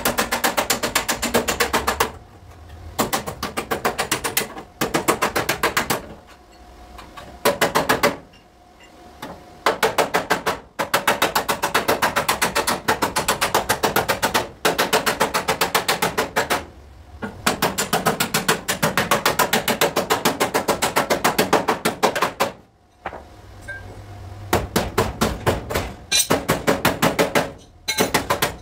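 Rapid metal hammering on car body sheet metal: runs of quick, evenly spaced taps, about eight a second, each run lasting a second to several seconds, broken by short pauses.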